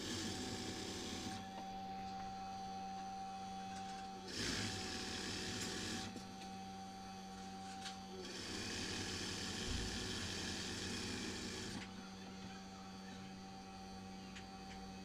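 JUKI industrial sewing machine stitching a seam through jersey knit fabric in three runs: a short one at the start, another of nearly two seconds about four seconds in, and a longer one of about three and a half seconds past the middle. A steady hum carries on between the runs.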